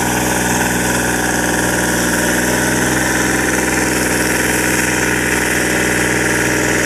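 Kubota DC-70 combine harvester's diesel engine running at a steady pitch as the machine drives through flooded rice paddy.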